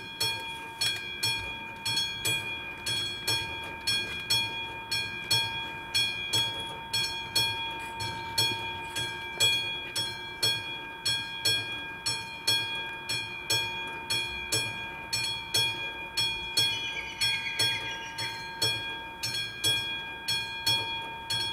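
Classic electromechanical bell of an AŽD 71 level-crossing signal. It starts abruptly and rings with rapid, even strokes, warning that a train is approaching.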